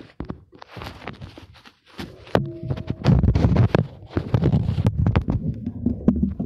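Handling noise from a phone microphone rubbing against clothing and skin as the phone is moved and set down on wooden boards: rustling and scraping with a run of knocks, and a dense low rumble from about two seconds in.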